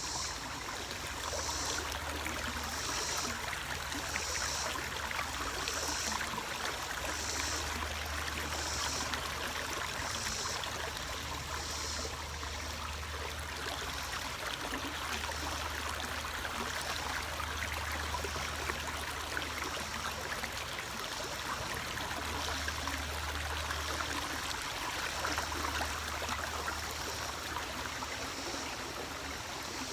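Steady rush of running water, like a flowing stream. Over it runs a high, pulsing chirr that repeats about every second and a half at first and then evens out.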